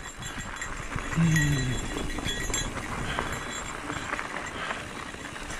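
Mountain bike ridden along a dirt singletrack: tyres rolling over dirt and roots, with steady small clicks and rattles from the bike. A brief low hum or grunt from the rider about a second in.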